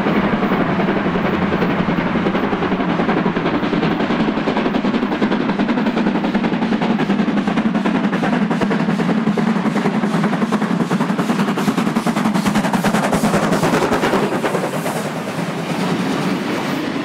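South African Railways Class 15F steam locomotive working hard as it passes with a passenger train, its exhaust beats coming in a fast, even run. Near the end, its tender and the coaches roll past.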